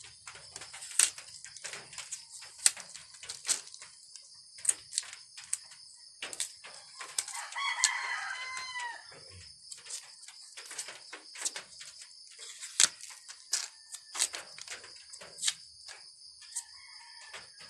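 Kitchen knife peeling a cassava root: a series of short, sharp scraping strokes, irregular, about one or two a second. A chicken calls once about eight seconds in, over a steady high drone of night insects.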